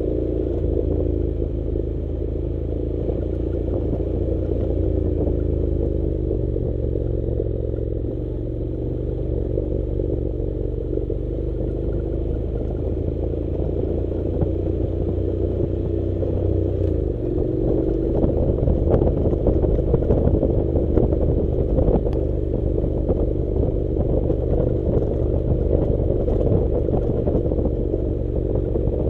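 Honda NC700 motorcycle's parallel-twin engine running at low revs, its pitch shifting a few times, with tyres crunching over gravel and loose stones clattering. The ride gets rougher and the clatter denser in the second half.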